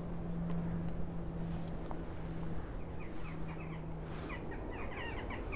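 Outdoor ambience with a steady low hum that stops about four and a half seconds in, and from about three seconds in a quick run of short, high bird chirps.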